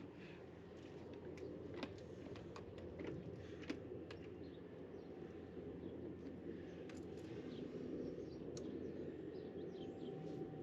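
Scattered light clicks and taps of screws and storm door closer hardware being handled, over a steady low background rumble.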